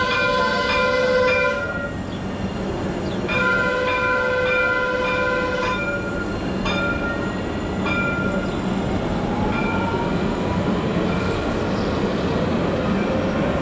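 Tram sounding its warning bell in two bursts of rapid repeated rings, then a rising motor whine as it moves off.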